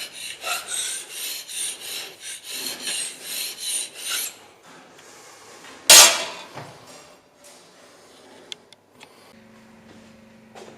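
Carbide-tipped hand scraper cutting a machine-tool guideway: a quick series of short scraping strokes, about two or three a second, for roughly four seconds. About six seconds in comes one loud sudden impact, followed by a few faint clicks.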